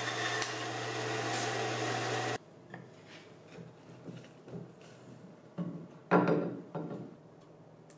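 Band saw running steadily with a low hum while cutting a walnut board against its fence, cutting off abruptly a little over two seconds in. Then light knocks and rubs of walnut parts being handled and fitted together, with a louder brief wood-on-wood scrape about six seconds in.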